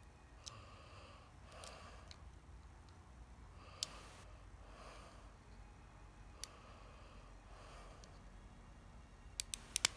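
Faint, scattered small metallic clicks of a pick and tension wrench working the pins of a Master Lock 146D four-pin padlock with security pins, with a quick run of several clicks near the end. Soft breathing through the nose in between.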